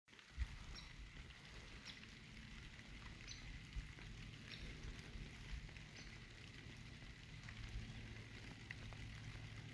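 Faint woodland background: scattered light ticks and patter, about one a second, over a low steady hum, with one louder knock near the start.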